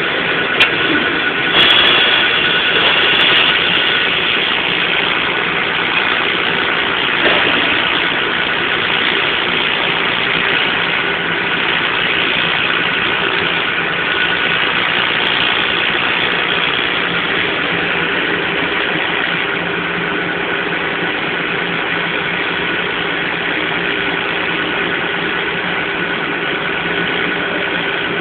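TIG welding setup running steadily during a weld: a continuous machine hum with hiss, with a few brief clicks in the first two seconds.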